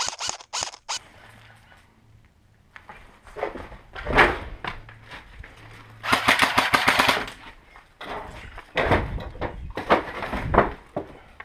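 Airsoft gun firing a rapid full-auto burst of just over a second, about ten shots a second, around the middle. Before and after it come scuffing and rustling sounds from movement through brush and debris.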